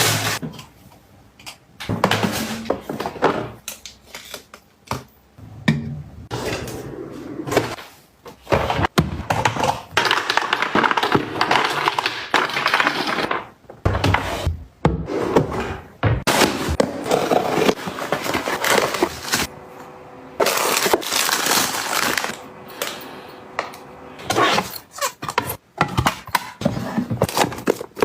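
Containers and packaging being handled and set in place: many sharp knocks and clacks with stretches of rustling.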